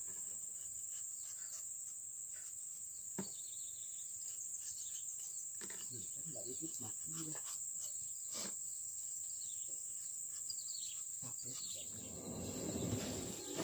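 Steady high drone of insects, with soft scattered scrapes and clicks of a knife cutting the peel off a firm fruit.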